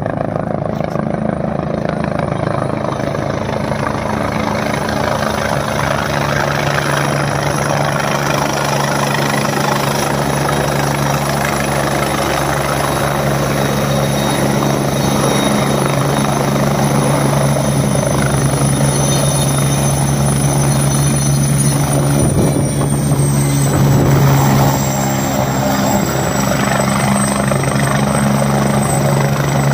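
Helicopter approaching and landing: steady rotor and turbine noise with a thin high turbine whine. The sound grows fuller as it comes in. About three-quarters through, the loudness eases and the whine drops in pitch as the helicopter sets down and settles to a steady run on the pad.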